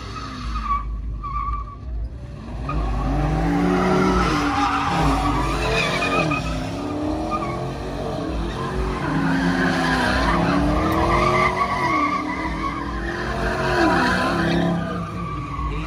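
A car doing donuts: its engine revs up and down again and again while the tyres spin and squeal on the pavement. There is a short lull near the start.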